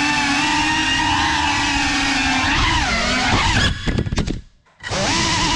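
FPV quadcopter's electric motors whining steadily, the pitch dipping and rising with throttle changes. About three and a half seconds in the whine stutters and cuts out for about half a second, then comes back.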